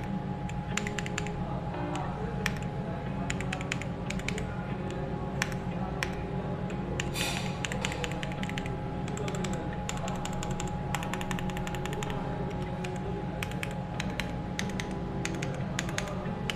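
Typing on an AJAZZ AK820 gasket-mounted 75% mechanical keyboard: a quick, uneven run of key clacks, with soft background music underneath.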